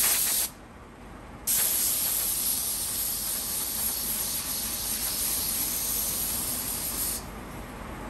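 Compressed-air blow gun blowing dust off sandblasted rifle parts before they are sprayed with Cerakote. A short blast stops about half a second in; a second later a steady hiss runs for about six seconds and cuts off suddenly.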